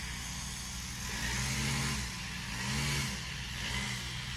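Lawn mower engine running steadily while cutting grass.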